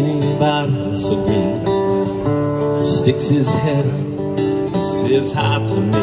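Acoustic guitar played live: strummed and picked chords ringing on in a steady rhythm.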